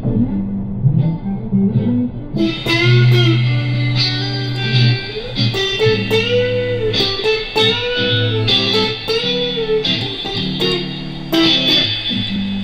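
Electric guitar playing a melodic line of picked, held notes, several of them bent up and back down, over lower sustained notes. It grows fuller and brighter about two seconds in.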